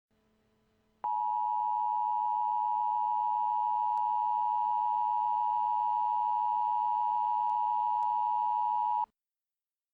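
Emergency Alert System attention signal: the steady two-tone alarm of 853 and 960 Hz sounded together. It starts about a second in and cuts off after about eight seconds, the warning tone that announces an emergency alert message.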